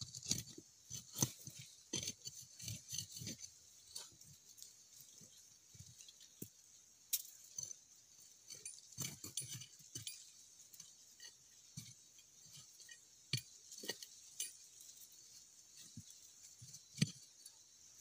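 Digging in dry soil with a short hand tool: irregular scrapes, knocks and crumbling clods, with the sharpest knocks about a second in, near the middle and near the end.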